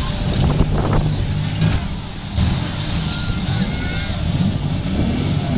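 Several demolition derby cars' engines running loudly as the cars manoeuvre in the arena.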